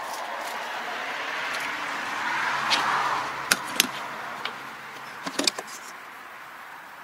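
Plastic toolbox latch snapping open with two sharp clicks, then a few lighter clicks as the lid is lifted, over rustling handling noise.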